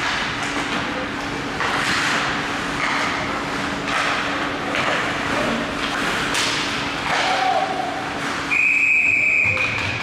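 Ice hockey skates scraping and sticks knocking during a scramble in front of the net. About eight and a half seconds in, a referee's whistle blows one steady note for about a second and a half, stopping play.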